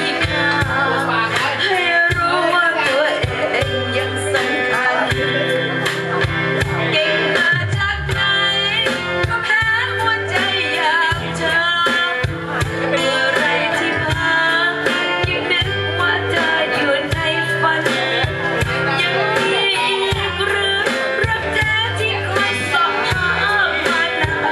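A Thai song playing, with singing over guitar and a steady, pulsing bass beat.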